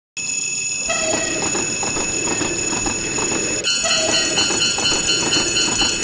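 Railroad crossing warning bells ringing over an electric train passing, its wheels clattering rhythmically over the rail joints. About three and a half seconds in, the bell changes to a different, pulsing crossing-bell pattern.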